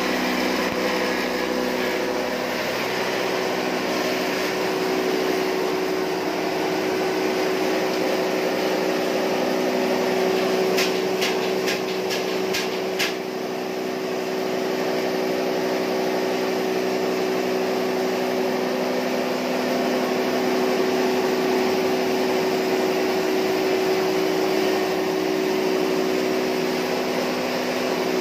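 Electric posho mill (hammer mill) running steadily while grinding maize and cassava into flour, a constant machine drone with a low hum. About halfway through, a quick run of half a dozen clicks.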